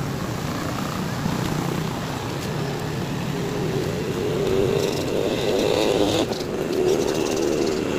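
Street noise with a motor vehicle's engine running close by, growing louder in the second half.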